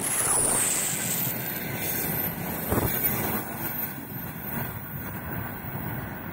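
Freight train's last container flat wagons passing close by on steel rails, wheels rumbling and clattering, with a few knocks about three seconds in. The sound fades as the tail of the train rolls away.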